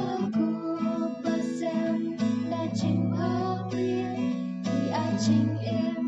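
A song played on strummed acoustic guitar, with singing.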